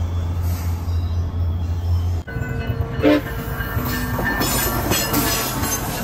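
SunRail commuter train passing, with a steady low rumble for the first two seconds. After an abrupt break, its horn sounds briefly about three seconds in and again near the end.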